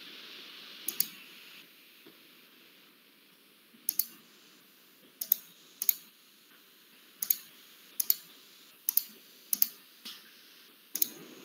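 Computer mouse clicking over a video call: about nine short, sharp clicks at irregular intervals, several in quick doubles, over a faint hiss.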